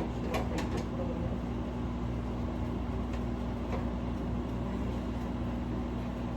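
Steady low mechanical hum of a running motor or fan, with a few light clicks in the first second and again a little past the middle.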